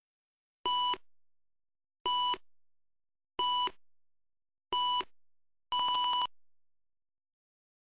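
Film-leader countdown beeps: four short, evenly spaced beeps, then a fifth beep about twice as long, each one a steady tone.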